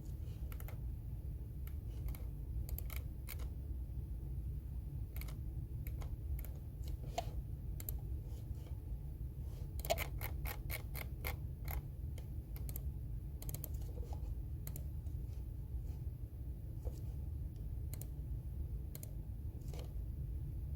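Typing on a computer keyboard: irregular keystrokes, with a quick run of keys about ten seconds in, over a steady low background hum.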